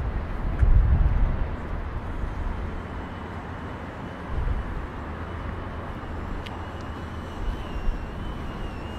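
Outdoor city ambience: a steady hiss of distant traffic under a low rumble that is heaviest in the first second or so. A faint, thin high tone wavers in from about three seconds.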